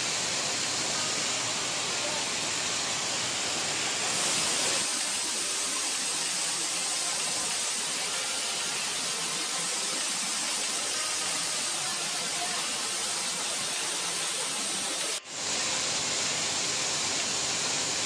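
Monsoon-swollen waterfall: a steady rush of fast-flowing, muddy water pouring over rock ledges. The sound cuts out for a split second about fifteen seconds in.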